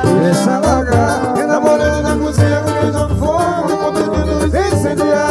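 Loud live band music between sung lines: a bass line and plucked strings carrying a Brazilian romantic song.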